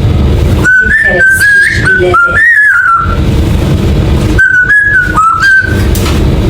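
Pet parrot whistling a tune in two short phrases of stepped, clear notes, over a steady low rumble.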